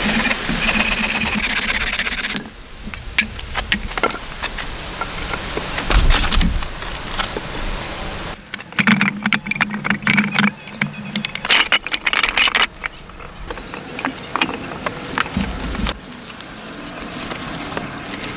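Hand building work with stone and wood: a run of short knocks, clatters and scrapes as stones and timber are handled and set in place, in several separate stretches.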